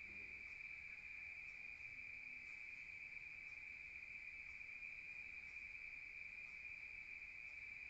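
Crickets chirping at night in a steady, unbroken high-pitched chorus.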